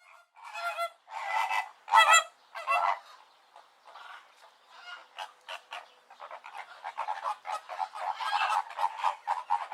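Flamingos honking: four loud goose-like calls in the first three seconds, then a flock gabbling with many short overlapping calls that grow busier toward the end.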